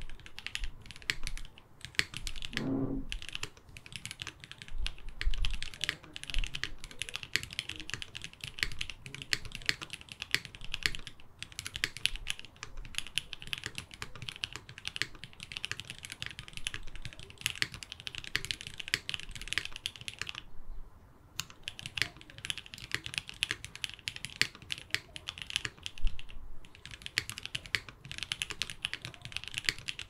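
Fast typing on a Katze60 60% custom mechanical keyboard with Gateron X linear switches, a carbon fibre plate, GMK Shoko keycaps and no case or PCB foam: a rapid, dense stream of key clacks with a few brief pauses.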